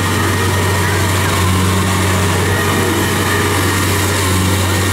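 Kubota DC70 rice combine harvester's diesel engine running steadily under load as it cuts and threshes rice.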